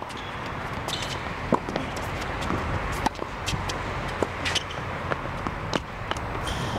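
Tennis rally: a series of sharp pops as the ball is struck by rackets and bounces on the hard court, over steady background noise.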